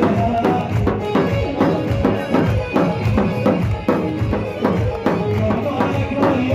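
Arab folk wedding-procession (zaffa) music: a steady, driving drum beat under a melody line.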